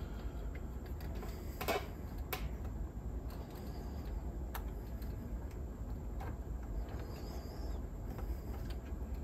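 A handful of light clicks and one brief scrape about two seconds in, from small parts and wires being handled inside a cassette deck during reassembly. They sound over a steady low hum.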